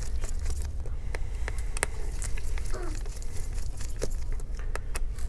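Scattered light clicks and taps from gloved hands handling a screwdriver and an opened MacBook Pro's aluminium chassis, over a steady low hum.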